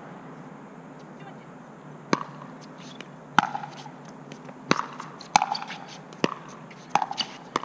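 Pickleball paddles hitting a plastic pickleball back and forth in a rally: a string of sharp pops about a second apart, starting about two seconds in.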